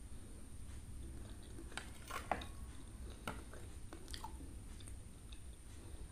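Mouth sounds of eating kolak: soft chewing and wet smacks on pieces of banana, sweet potato and sugar palm fruit in coconut milk, with a few sharp clicks scattered through, the sharpest a little over two seconds in.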